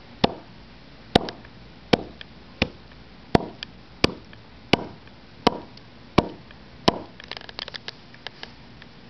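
Raw chicken drumstick being chopped through the bone: ten sharp, evenly spaced chops a little under a second apart, then a quick flurry of small clicks near the end.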